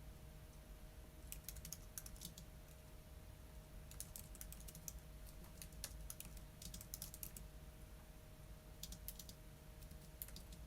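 Computer keyboard typing in short bursts of quick keystrokes with pauses between them, over a faint steady hum.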